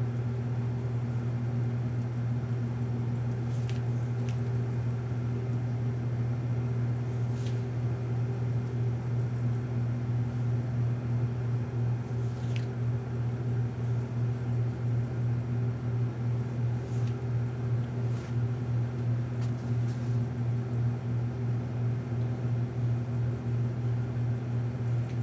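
Steady low electrical hum from a Jovy RE-7500 infrared rework station as it heats a PS3 GPU toward solder reflow, with a few faint ticks scattered through it.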